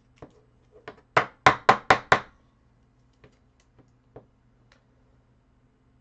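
Five quick, loud knocks in a row, about four a second, beginning about a second in, with a few fainter clicks and taps before and after them, over a faint steady hum.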